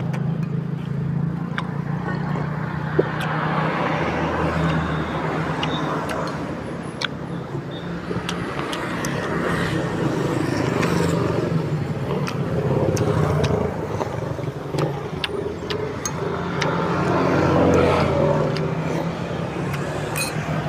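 Road traffic passing, with vehicles swelling up and fading away several times over a steady low engine hum. Scattered light clicks sound on top.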